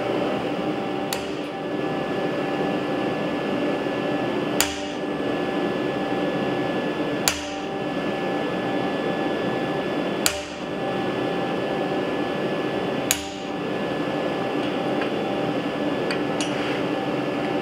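Single hammer blows on a steel punch, denting suction-cup dimples into a tentacle-shaped steel bar clamped in a vise. The blows come about every three seconds over a steady background hum.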